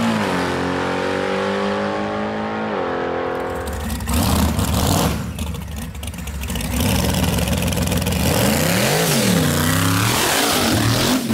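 A drag car's engine note falls away as it runs down the strip. Then a supercharged fifth-generation Chevrolet Camaro does a burnout at the starting line, with tyre noise and the engine revving up and down several times near the end.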